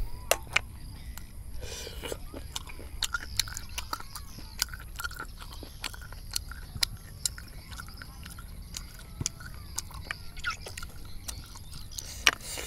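Eating stir-fried snails: sharp clicks of snail shells knocking against one another and the metal pan as they are picked up, with chewing and scraping sounds in between.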